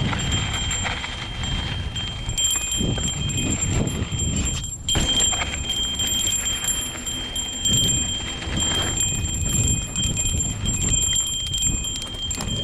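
Mountain bike rolling down a dirt trail: tyres rattling and crunching over the rough ground, wind rumbling on the microphone, and a steady high-pitched whine over it all.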